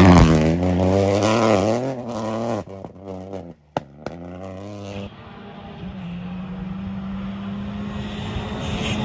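A rally car's engine passing close at high revs, its pitch rising and falling through gear changes, then fading away. After a sudden cut, another rally car's engine is heard in the distance as a steady note growing slowly louder as it approaches.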